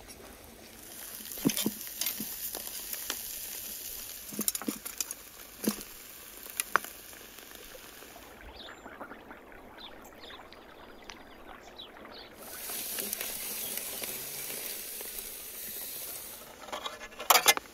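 Fire-heated stones sizzling and hissing against raw lamb and vegetables as they start to cook them, with scattered sharp clicks.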